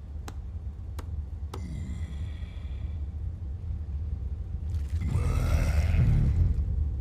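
A low rumbling drone that slowly grows louder, with three sharp clicks in the first two seconds and a swelling rush of noise from about five seconds in: tense sound effects and score from the anime episode.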